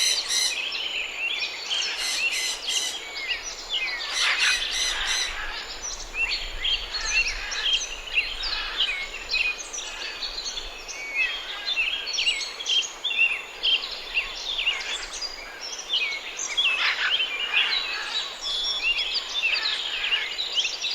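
Many birds chirping and singing at once in a continuous chorus of short, overlapping whistled notes and quick pitch glides.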